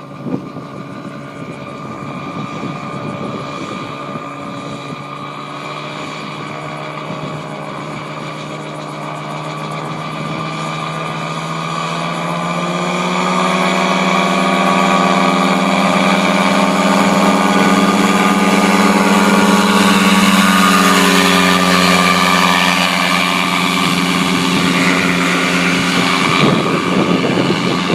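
Gyroplane's propeller engine running, its pitch and loudness rising from about eleven seconds in as the throttle opens for a takeoff run with no prerotator, then holding steady at high power. Wind buffets the microphone near the end.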